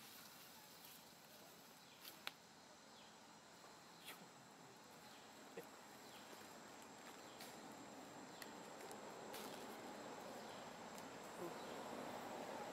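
Faint outdoor ambience of insects, with a thin steady high tone, a few small clicks, and a broad hiss that swells slightly near the end.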